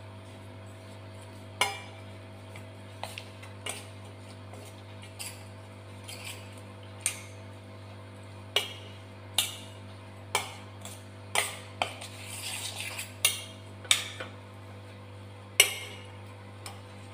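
A metal spoon clinking and scraping against a stainless steel bowl while mixing dried bitter gourd pieces with curd and pepper. There are irregular sharp clinks roughly a second apart, with a longer scrape about twelve seconds in, over a steady low hum.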